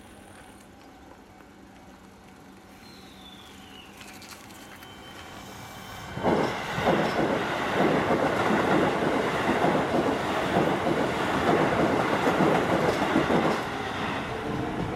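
Electric commuter train passing through the station at speed: a sudden loud rush of wheels on rail starting about six seconds in, with fast clickety-clack from the rail joints, easing off slightly near the end.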